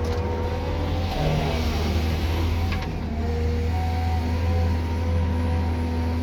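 Cat 323 GC excavator's diesel engine running at a steady speed: a low, even drone with faint higher tones that come and go.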